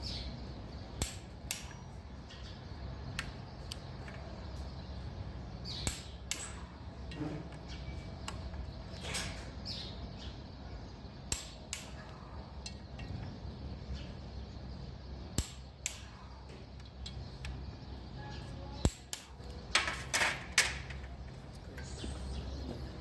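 Hand tools clicking and knocking now and then on engine parts over a steady low hum, with a quick run of louder knocks near the end.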